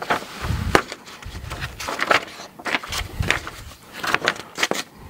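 Irregular handling noise: paper rustling, with light clicks and knocks on the work surface.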